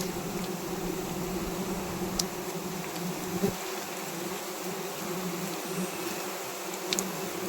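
A swarm of honey bees buzzing around a wild comb being cut for honey: a dense, steady drone that wavers slightly in pitch, the sound of a disturbed colony. Two faint sharp clicks, about two seconds in and near the end.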